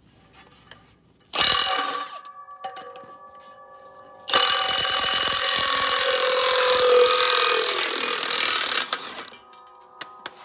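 Cordless 3/4-inch impact wrench hammering on the disc harrow's gang-shaft lock nut, working it off: a short burst about a second and a half in, then a long burst of about five seconds. A metallic ringing lingers after each burst, and a few metallic clinks come near the end.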